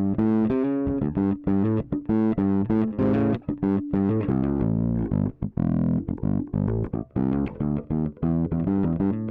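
Alien Audio Constellation four-string electric bass on its back pickup alone, through its onboard overdrive, played as a quick run of many short plucked notes. Recorded direct into an audio interface with no amp or processing.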